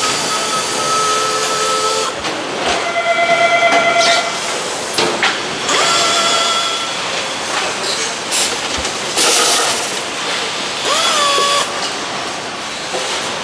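Motorcycle assembly-line noise: repeated bursts of compressed-air hiss from pneumatic tools, with whining tones of air tools running in between, a fast rattle about three seconds in, and a tone that rises and then holds near the end.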